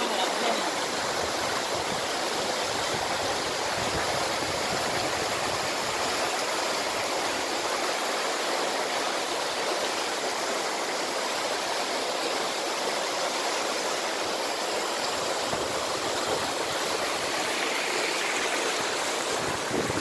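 A small waterfall rushing and splashing down between rocks into a pool, a steady, even sound of falling water.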